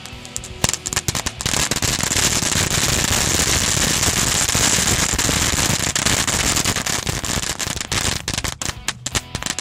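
Black Cat Cat Tails fireworks, 30-inch strands of crackling composition, going off as a dense crackle of loud, rapid cracks. The cracks start scattered, run together into an unbroken crackle within the first couple of seconds, and thin to separate cracks near the end.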